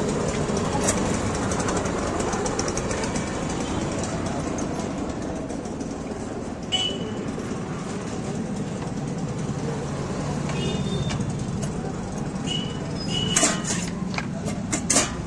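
Busy street-market ambience: a steady mix of traffic noise and background voices, with a few short high toots and some sharp clicks and rustles near the end.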